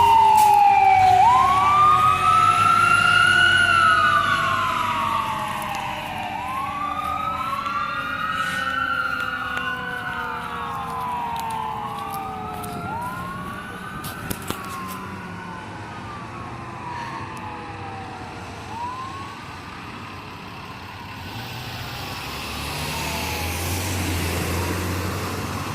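Fire engine siren wailing, each rise and fall lasting about two and a half seconds, with a long, slowly falling tone underneath, the whole growing steadily fainter. The siren dies out about three quarters of the way through, leaving a low engine and road rumble.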